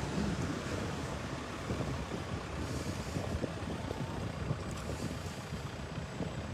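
Wind buffeting the microphone of a handheld camera carried on foot: a steady, gusty low rumble with no clear pitch.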